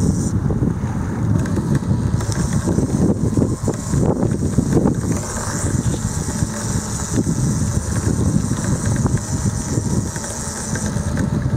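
Gusty wind buffeting the microphone over the steady noise of a small boat's outboard motor running at trolling speed on choppy water. A higher hiss comes and goes.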